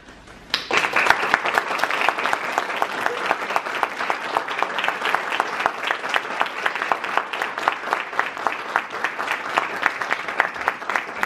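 Audience applauding: dense, steady clapping that starts suddenly about half a second in.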